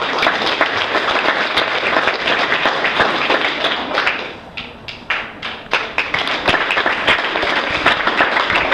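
Audience applauding: many people clapping at once, thinning to scattered separate claps about halfway through, then filling in again.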